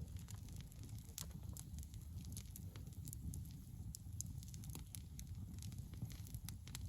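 Wood campfire crackling: irregular sharp pops and snaps of burning wood over a low steady rumble.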